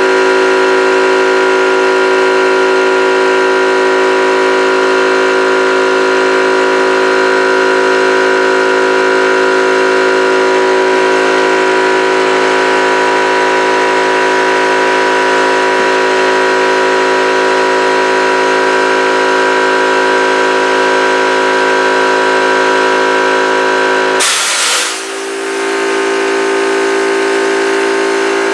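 Yong Heng portable high-pressure PCP compressor running steadily and loudly as it fills a PCP air rifle. About 24 seconds in there is a short burst of hissing air, after which a thinner, lower steady hum carries on.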